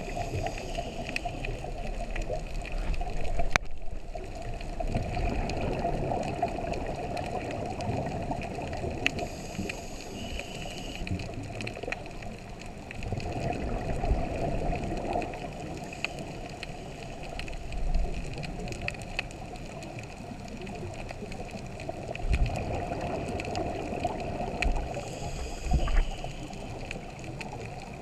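Scuba diver breathing through a regulator underwater, with exhaled air bubbling out in swells every few seconds, heard from the camera underwater.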